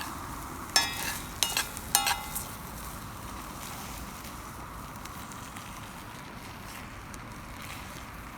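Tandoori chicken sizzling as it cooks, with a steady hiss. A few sharp, ringing metal clinks, like a metal utensil striking the pan, come between about one and two and a half seconds in.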